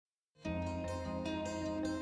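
Soft background music with plucked string notes over a sustained low tone, starting about half a second in.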